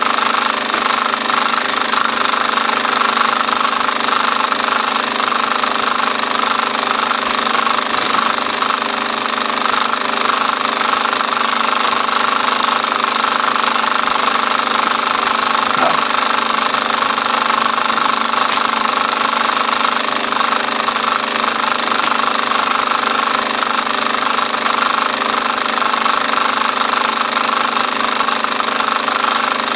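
Film projector running: a steady, rapid mechanical clatter.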